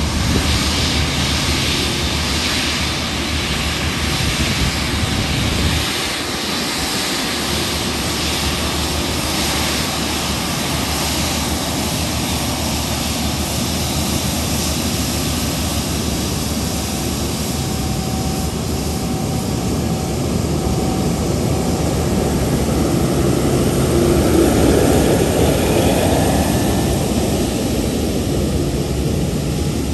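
The four GEnx turbofans of a UPS Boeing 747-8F freighter at taxi power as it rolls past: a steady jet whine and rumble. It swells somewhat about three-quarters of the way through as the engines go by.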